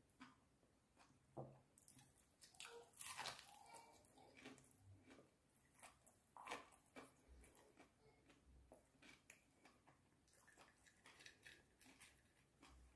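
Quiet, close-miked chewing and biting of crispy breaded fried chicken, with irregular crackling crunches from the coating. A few louder crunches stand out in the first half.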